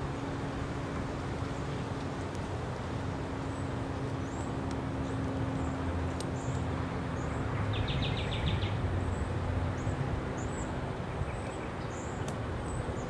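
Steady low rumble of distant traffic with a faint low hum. Over it, small high-pitched bird chirps come every second or so, and a brief rapid trill sounds about eight seconds in.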